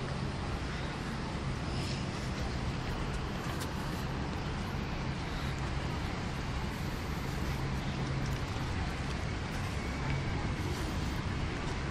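Steady outdoor ambience of a crowded open plaza: a constant low hum and rumble under an even wash of noise, with faint crowd sounds.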